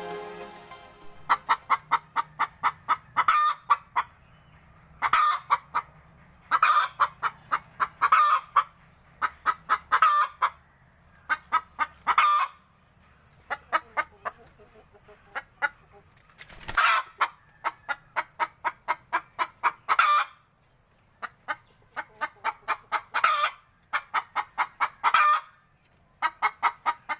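Free-range native chicken clucking in quick runs of short clucks, several a second, with brief pauses between the runs.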